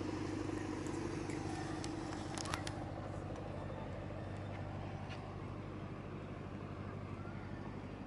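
Tour boat's engine running with a steady low hum that slowly fades as the boat moves away up the canal.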